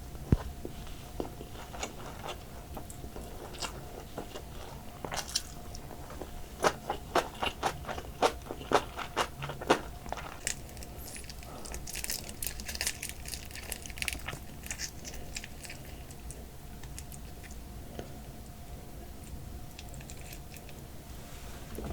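Close-miked eating of soy sauce marinated raw crab: biting and crunching through the shell and chewing, with a run of loud sharp crunches from about six to ten seconds in.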